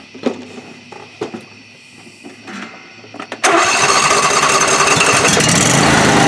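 Husqvarna riding lawn tractor's engine starting: a few knocks and clicks, then about three and a half seconds in the engine suddenly catches and runs on loudly and steadily.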